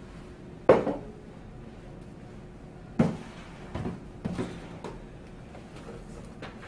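Glass liqueur bottles and other pantry items being set down on a kitchen countertop: a sharp knock just under a second in, another about three seconds in, then a few lighter knocks as more things are handled.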